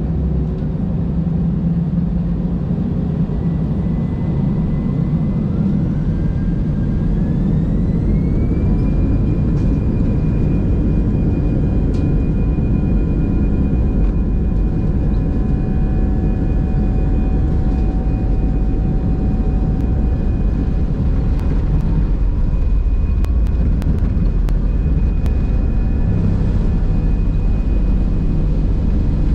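Airbus A319 jet engines spooling up to takeoff power, heard from inside the cabin over the wing. A whine rises over the first several seconds, then settles into a steady high tone over a loud, even rumble as the plane accelerates down the runway.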